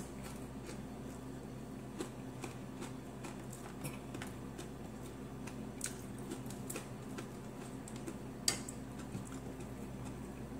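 Quiet close-up eating sounds: chewing with scattered small wet mouth clicks and smacks, one sharper click about eight and a half seconds in, over a steady low hum.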